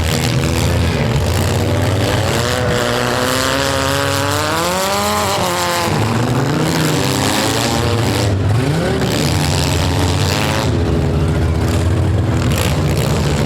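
Demolition derby cars' four- and six-cylinder engines running and revving over a steady low drone. One engine climbs in pitch and then drops off about four to six seconds in, and another revs briefly near nine seconds.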